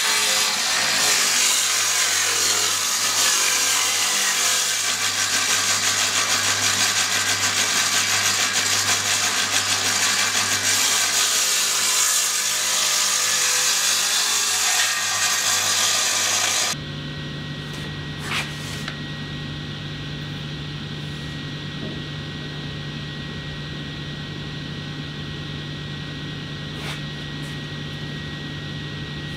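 Table saw running and ripping a wooden board lengthwise: the blade cutting through the wood over a steady motor hum. About 17 seconds in the sound cuts off abruptly, leaving a quieter steady low hum with a few faint clicks.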